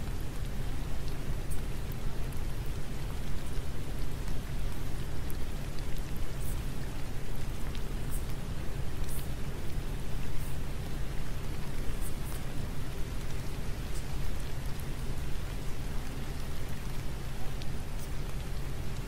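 Steady rain, an even hiss with scattered faint drop ticks, over a steady low hum.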